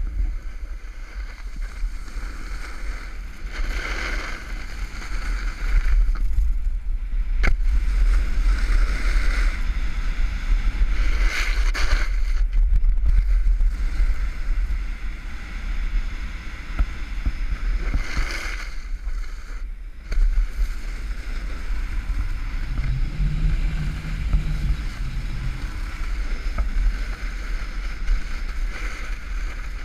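Wind buffeting an action camera's microphone during a fast run down a groomed ski slope, a steady low rumble. Over it, the hiss of edges carving across the snow swells and fades with each turn.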